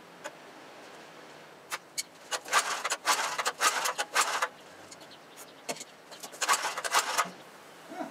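Clicking and rattling of metal tools or parts being handled, in two spells of quick clinks with a few single clicks before them.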